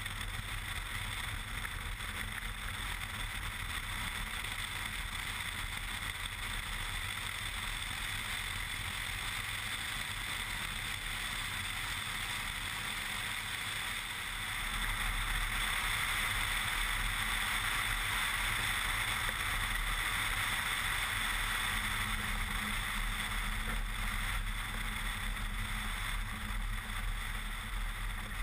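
Cessna 170B's engine and propeller running steadily, heard through rushing wind on a microphone mounted outside on the fuselage. The sound grows louder about halfway through and eases again near the end.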